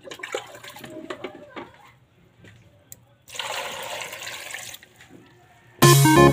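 Water poured from above onto a pot full of snails, a splashing pour lasting about a second and a half a little past the middle. Faint scattered clicks before it, and electronic music comes in loudly near the end.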